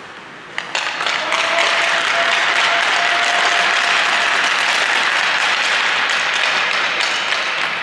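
Applause and cheering that break out suddenly about half a second in and hold steady and loud, with a faint steady tone underneath for the first few seconds.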